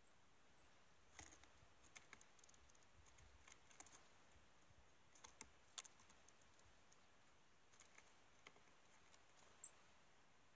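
Quiet outdoor ambience with faint, irregular light clicks and taps, and a few very high, thin chirps from small birds around a seed feeder.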